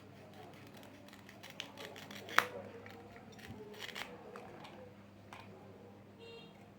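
Small toy pieces and packaging being handled: a run of light clicks and taps, the loudest a single sharp click about two and a half seconds in, and a brief high tone near the end.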